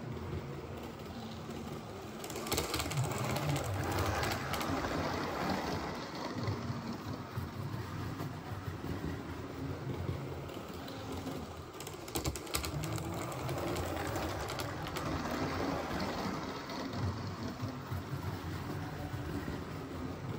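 Model HST train running on the layout: its small electric motor whirring and its wheels running on the track, getting louder twice as it comes by, with a few sharp clicks.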